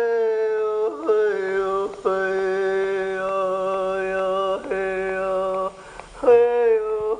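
A voice chanting long held notes of steady pitch, each gliding briefly down into the note at its start. The notes break off briefly about a second and two seconds in, and there is a short dip near six seconds before the next note.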